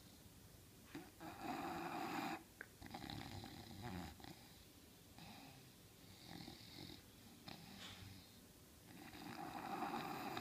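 English bulldog snoring in its sleep: a long, loud snore about a second in and another near the end, with softer snoring breaths between.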